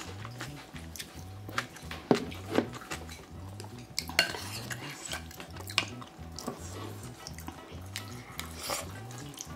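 Kitchen utensils clinking and knocking against pots and dishes during cooking, in irregular sharp clicks, the loudest a little after two seconds and around four seconds in.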